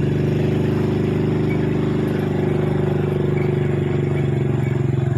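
Motorcycle engine running steadily under way, holding an even pitch.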